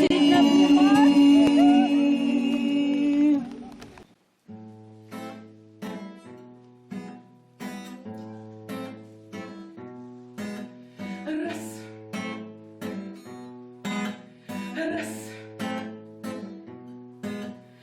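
Music: the last sung note of a song, held over its accompaniment, ends about three and a half seconds in. After a short gap, an instrumental introduction starts on a strummed and plucked guitar, with even strokes about twice a second over a stepping bass line.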